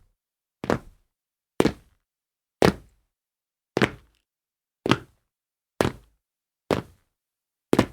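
Foley of someone jumping and landing on a tile floor, repeated: eight separate thuds about a second apart, each short and dying away quickly, with silence between them.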